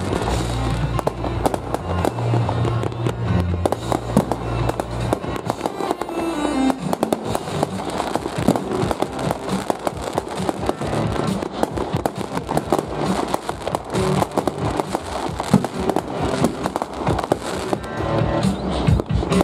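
Fireworks going off in quick succession: many bangs and a dense crackling from aerial bursts, over music with a heavy bass line that is strongest in the first few seconds.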